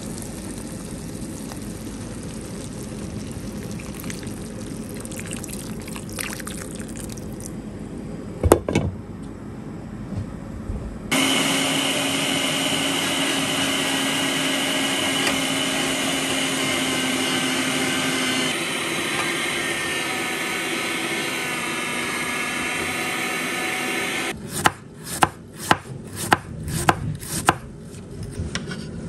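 An electric juicer switches on about a third of the way in and runs steadily with a constant whine, pressing beetroot into juice. It cuts out near the end and gives way to a chef's knife shredding cabbage on a wooden cutting board, about two sharp chops a second. Before the juicer there is a low steady hiss with a single thump.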